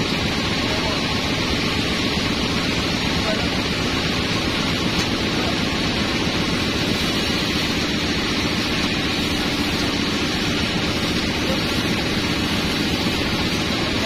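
Band sawmill running, a steady, even machine noise with no breaks.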